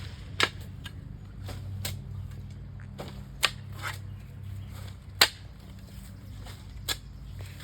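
A digging tool striking into dirt and stones, about four sharp hits spaced irregularly a second or two apart, with a few lighter scrapes between them.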